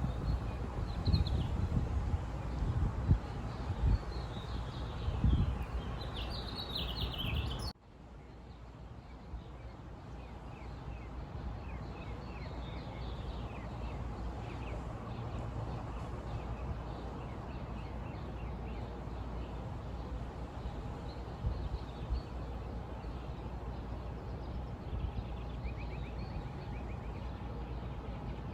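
Small birds chirping and twittering over steady outdoor background noise, with gusts of wind buffeting the microphone. About eight seconds in, the recording cuts abruptly to a quieter stretch of steady background hiss with faint, scattered bird chirps.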